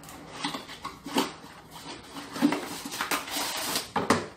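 Cardboard box being opened and plastic wrapping rustling and crinkling as wrapped plates are lifted out, with a few sharp clicks and knocks from the handling. The rustling is densest near the end.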